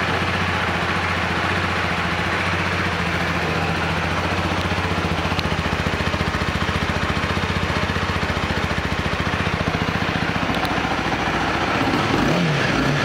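Honda CB300F's 286 cc single-cylinder engine idling steadily through its stock exhaust, with a brief rise and fall in pitch near the end.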